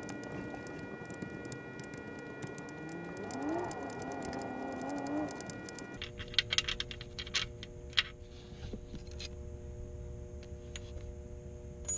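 Fast, even clicking of a ratchet backing out a long mounting bolt, then a few separate metal clicks and clinks about halfway through as the loosened bolt is worked free.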